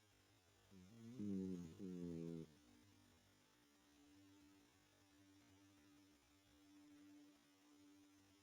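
A sleeping dog snoring: two short pitched snores about a second in, then a faint steady tone from its breathing.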